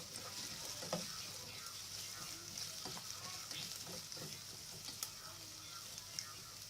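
Onions frying in hot oil: a steady high sizzle, with occasional light clicks and scrapes of stirring.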